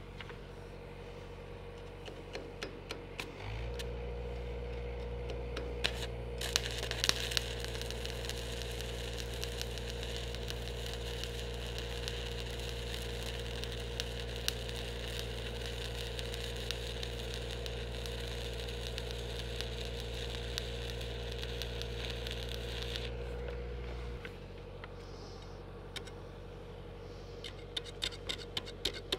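A 3/32-inch 7018 stick-welding arc crackling and sizzling steadily for about seventeen seconds while a mobile welding rig's engine hums under load. The engine steps up about 3.5 s in and drops back near the end of the weld, around 24 s. A few sharp ticks come before the arc starts and again after it stops.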